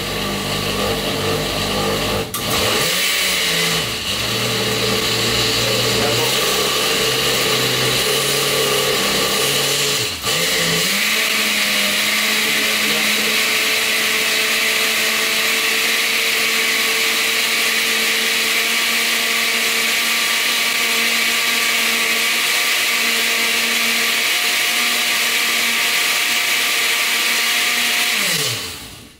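Countertop blender running on its lowest speed, pureeing tomato, garlic and water for gazpacho. About ten seconds in, the motor's pitch rises as it is switched to a higher speed. Near the end it winds down and stops.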